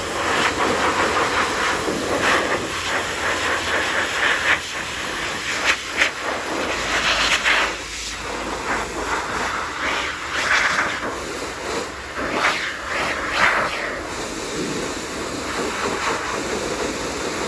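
High-velocity dog dryer blowing a strong stream of air through a Samoyed puppy's coat to blow out the loose fur before bathing; the steady hiss swells and fades as the nozzle is moved over the body.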